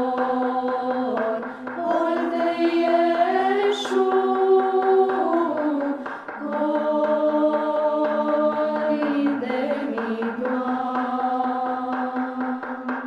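Women's choir singing a Romanian Christmas carol (colindă) a cappella, the melody moving in held notes over a steady low drone. Short breaths between phrases about a second and a half and six seconds in.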